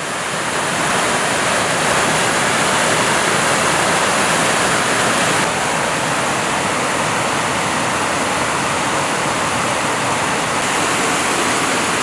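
Small mountain waterfall and stream rushing over rocks, running full with snowmelt: a steady rushing of white water. It drops a little in level about five and a half seconds in.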